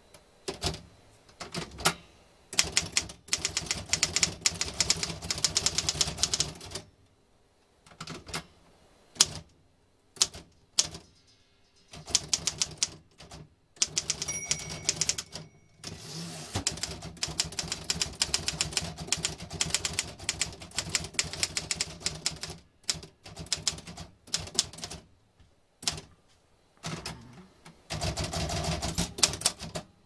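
A worn 1950s Royal HH manual typewriter being typed on: runs of rapid clacking keystrokes broken by short pauses of a second or so. The owner notes that some of its typebars bounce and double-strike.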